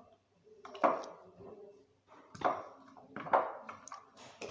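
A spoon tapping and clinking against kitchenware while spices are measured out, about four separate sharp knocks, each ringing briefly.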